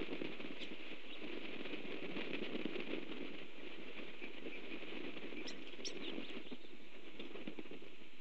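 Steady crackling rustle of twigs in a red-tailed hawk's stick nest as the incubating hawk shifts and settles on it. Two brief high chirps come about five and a half seconds in.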